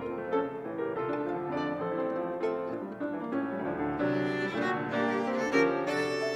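Violin and grand piano playing classical music together: the bowed violin line sustains over a steady run of piano notes, and the violin grows brighter and more prominent in the last couple of seconds.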